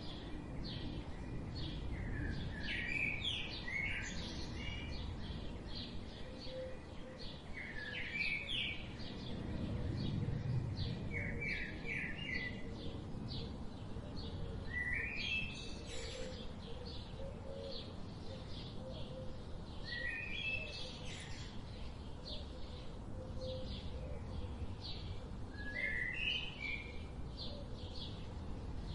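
Several wild birds chirping and singing. One bird repeats a short, bright phrase of a few quick notes every few seconds, over a busy background of many fainter rapid chirps and a steady low outdoor rumble.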